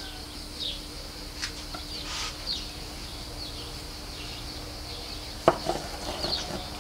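Carving knife slicing through a grilled flank steak on a wooden cutting board, mostly soft, with a sharp tap of the blade against the board about five and a half seconds in and a few lighter taps after it. Faint bird chirps in the background.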